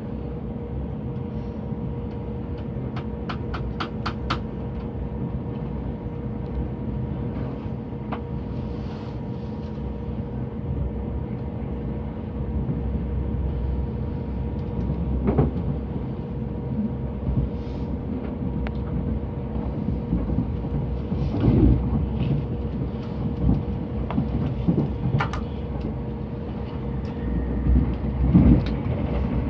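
Electric train running, heard from inside the carriage: a steady low rumble of wheels on rail under a constant hum, with irregular thumps and clacks over the track that grow louder over the second half. A quick run of sharp clicks comes about three seconds in.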